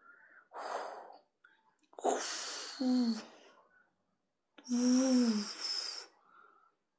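Vocal sound effects made with the mouth: three breathy, hissing bursts, the second and third with a voiced tone sliding downward, imitating a plane crashing into and wrecking a tower.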